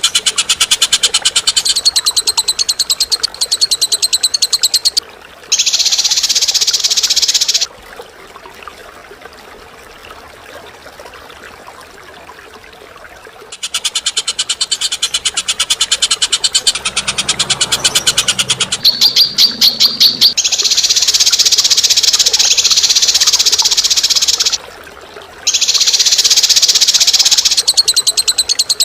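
Recorded cage-bird song: long runs of rapid, harsh chattering trills alternating with buzzy sustained calls, broken by a few quieter pauses.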